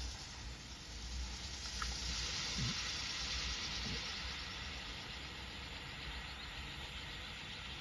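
Small gas torch flame hissing steadily, heating a solar-panel cable connector to melt solder into it. The hiss grows louder about two seconds in.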